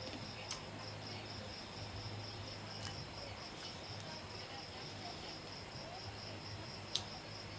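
A cricket chirping steadily, a high-pitched trill of about five pulses a second, with a few sharp clicks over it, the loudest near the end.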